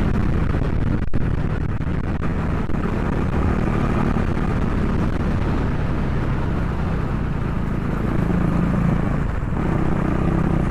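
KTM RC 390's single-cylinder engine running at a steady cruise, mixed with wind rushing on the microphone. The engine's low note grows a little stronger near the end.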